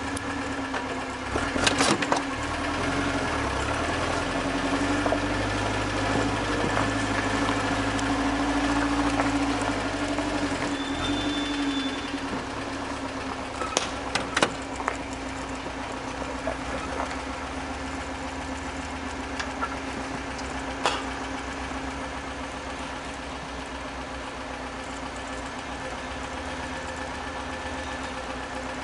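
Engine of a 1988 Toyota 4Runner running under light load while crawling through snow, heard from inside the cab. Its pitch climbs gradually, then drops and stays lower after about twelve seconds. A few short knocks come through, around two, fourteen and twenty-one seconds in.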